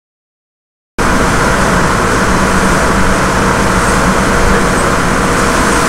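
Silence, then a sportfishing boat running at speed starts abruptly about a second in: a steady engine drone mixed with the rush of its churning wake.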